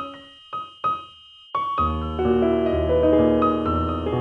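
Background piano music: a few single notes with short pauses, then from about a second and a half in a fuller passage with chords and low bass notes.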